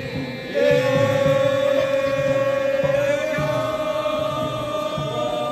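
A long, drawn-out chanted call from the daimyo procession's performers, one held pitch sustained for several seconds, with a regular low pulse beneath it.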